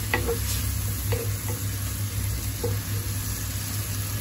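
Spinach and methi greens sizzling in a non-stick wok as a wooden spatula stirs them, cooking off the last of the spinach's water, with a few light knocks of the spatula against the pan in the first three seconds. A steady low hum runs underneath.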